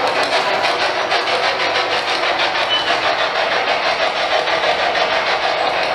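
SB7 spirit box sweeping through radio stations: a loud, steady rush of static chopped into rapid even pulses.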